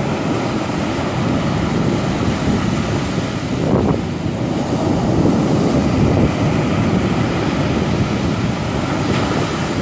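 Rough sea surf breaking and washing onto a pebble beach in a storm, a steady rumbling wash that swells a little a few times, with wind buffeting the microphone.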